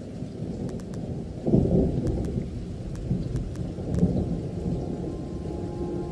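Recorded rain with low rolling thunder, a rumble that swells about a second and a half in. Steady sustained music notes come in near the end.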